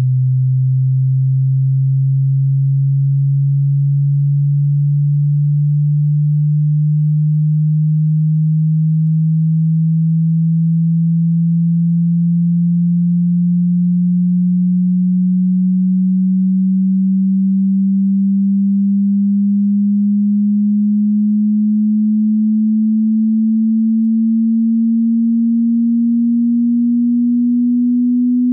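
Pure sine-wave test tone of a hearing-test frequency sweep: a single low hum gliding slowly and steadily upward in pitch at constant loudness.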